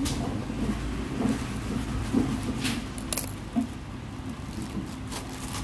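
Adhesive tape being pulled from the roll and pressed onto a wrapped parcel, with rustling handling noise. There are two short rasping bursts about halfway through.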